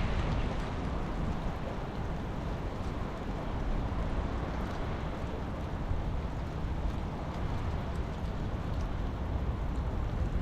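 Steady rain falling, with a low rumble of wind on the microphone under it.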